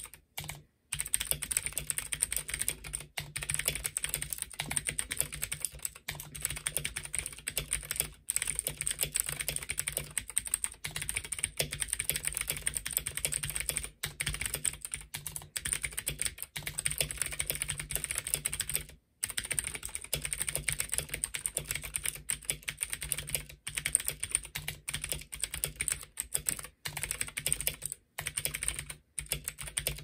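Fast, continuous typing on a Womier K66 acrylic-cased mechanical keyboard with unlubed Gateron Blue clicky switches: a dense run of sharp clicks, broken by a few brief pauses, one just after the start and one a little past the middle.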